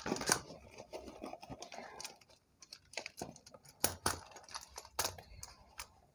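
Handling noise: a clear plastic bag rustling and hard-plastic quad roller skates clicking and knocking as they are unwrapped and set down, in scattered sharp clicks with a few louder knocks.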